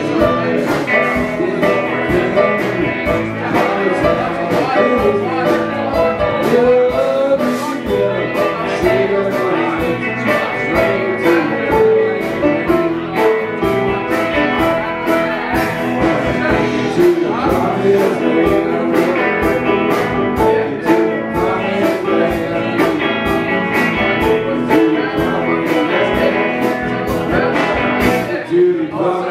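Live band playing a song: electric guitars, bass and keyboards over a steady beat, with a voice singing.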